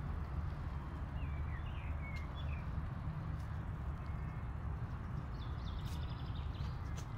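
Outdoor park ambience: a steady low rumble, a few short bird chirps between about one and two and a half seconds in, and scattered light taps of footsteps as the camera walks.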